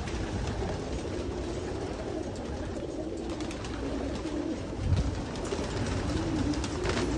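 A loft full of racing pigeons cooing together in a continuous, overlapping chorus. A brief thump comes about five seconds in.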